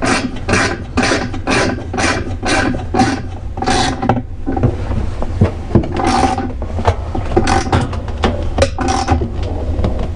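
Ratchet wrench clicking in repeated strokes, about two a second, driving in the new bolt that holds a washing machine's pulsator (wash plate) onto the splined motor shaft. After about four seconds the strokes become scattered and irregular.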